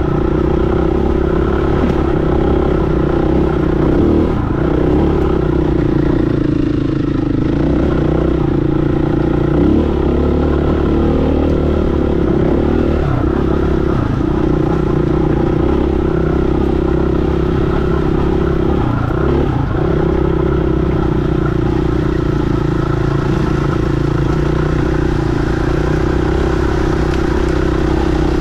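KTM 500 single-cylinder four-stroke dirt bike engine running under part throttle on a rough trail. Its pitch holds fairly steady, with brief dips a handful of times as the throttle is eased off.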